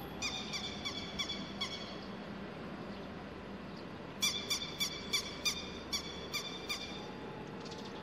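Grey-headed lapwing calling: two runs of sharp, repeated calls, about three a second, the second run starting about four seconds in and louder.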